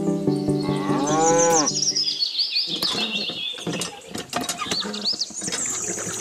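A cow moos once, a curving pitched call about a second in, over a steady held tone. Then come high, quickly falling chirps and a run of short clicks.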